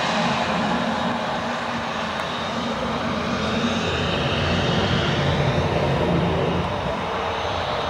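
Loud, steady aircraft engine noise, with a higher whine that bends in pitch around the middle.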